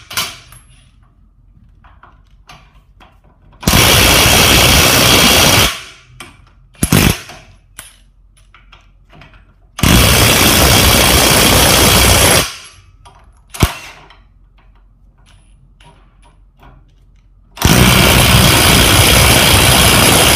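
Hitachi WR18DBDL2 18V brushless cordless impact wrench hammering on a bolt in three bursts of two to three seconds each, driving it to the tool's full capacity. Between the bursts there are a couple of short sharp knocks.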